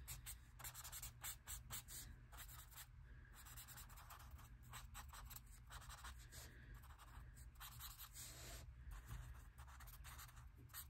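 Faint scratching of an alcohol marker's tip on sketchbook paper, in many quick short colouring strokes.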